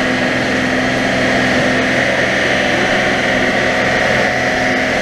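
Racing car engines running at a steady idle while warming up in the pit lane, a loud, even drone whose pitch does not change.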